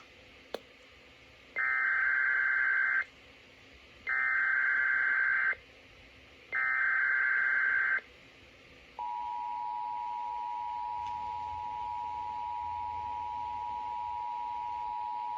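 Emergency Alert System header: three identical bursts of SAME digital data tones, each about a second and a half long with short gaps between. About nine seconds in, the steady two-tone EAS attention signal begins, marking the opening of a Required Monthly Test.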